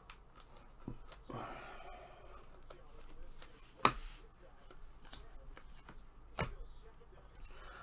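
Panini Prizm basketball cards being handled and flipped one by one: soft sliding and rustling with a few sharp clicks, the loudest just under four seconds in and another about six and a half seconds in.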